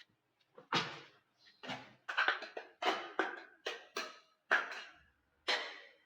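Glass bottles breaking one after another: about nine sharp smashes, each with a short tail of shattering glass trailing off.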